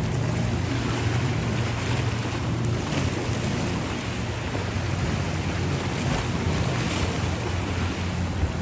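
Steady low drone of a marine engine over sloshing sea water, with wind buffeting the microphone.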